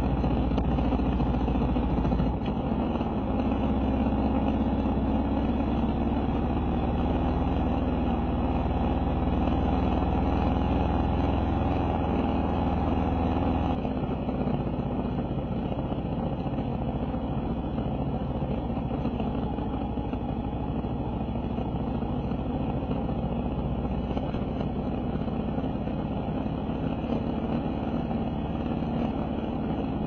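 Kawasaki KLR650's single-cylinder engine running steadily as the motorcycle rides along, the sound dropping a little in level about 14 seconds in.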